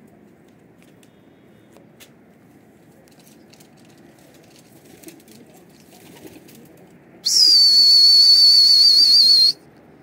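One loud, high whistle held on a single steady note with a slight waver for about two seconds, starting about seven seconds in; before it there is only faint background noise.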